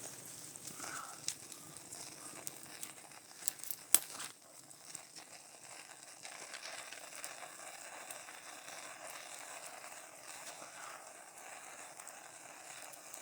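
Faint crackling and rustling of a small campfire being laid with sticks, with two sharp snaps about three and a half and four seconds in.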